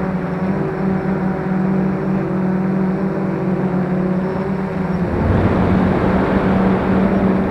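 F450 quadcopter's motors and propellers running with a steady hum, getting louder and rougher about five seconds in.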